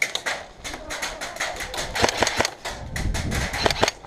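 Airsoft guns firing: a string of sharp, irregular snapping shots, several a second, with a low rumble about three seconds in.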